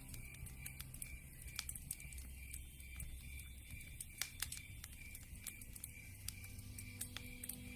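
Wood fire crackling in a fireplace: irregular sharp pops and snaps of burning logs over a low steady hum.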